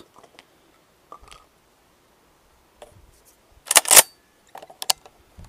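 A short cluster of sharp clicks and clatter about two-thirds of the way in, then a few lighter clicks: a shotgun being handled.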